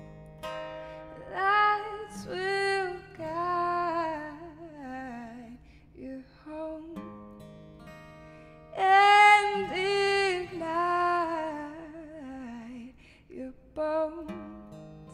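A woman singing slow, drawn-out phrases over acoustic guitar, with the loudest phrase starting about nine seconds in.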